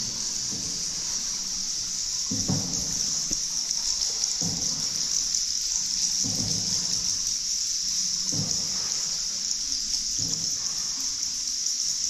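A boat paddle dipping and pulling through the water about every two seconds, over a steady high hiss.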